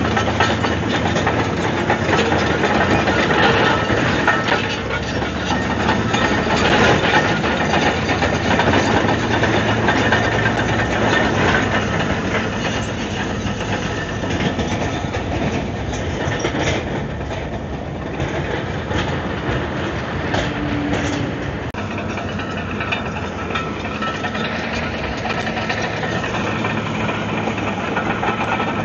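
Komatsu D155AX-7 crawler bulldozer working: its diesel engine running steadily under load with the clatter of its steel tracks, a little louder in the first half and easing off after about twelve seconds.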